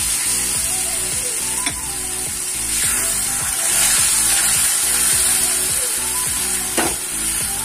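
Curry masala with fresh milk just added, sizzling in a hot kadai while a spatula stirs and scrapes through it, with a steady hiss. The spatula clacks sharply against the pan about a second and a half in and again near the end.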